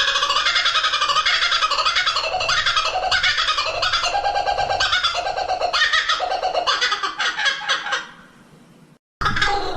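Kookaburra calling: a long, loud run of rapid repeated laughing notes that fades out about eight seconds in. After a brief cut to silence, another burst of calling starts near the end.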